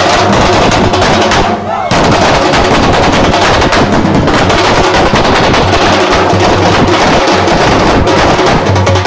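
Loud, dense drumming with rapid strokes, briefly falling away about one and a half seconds in before starting up again.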